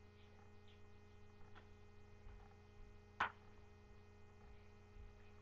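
Steady electrical mains hum under near silence, with one brief sharp sound a little over three seconds in.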